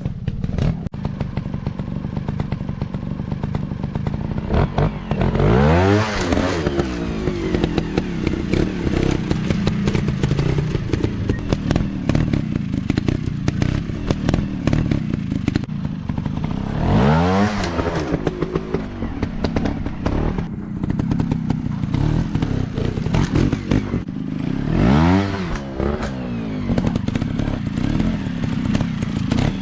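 Dirt bike engines running, with a crackly, ticking exhaust note; three times the pitch climbs and then drops back, about 5, 17 and 25 seconds in.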